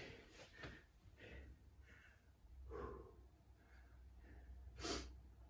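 A man's faint breathing, a few soft breaths with one louder breath near the end, as he recovers from high-intensity exercise.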